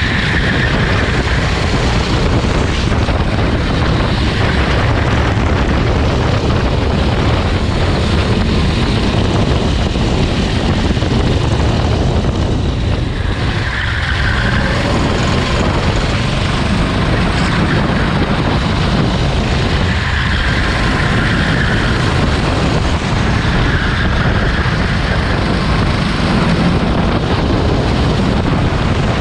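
Go-kart engine running at racing speed, heard through an onboard microphone, under loud, steady wind and road noise.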